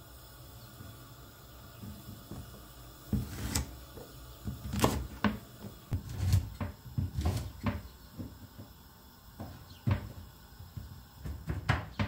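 Kitchen knife chopping peeled quince on a wooden cutting board: a dozen or so irregular knocks of the blade hitting the board, starting about three seconds in.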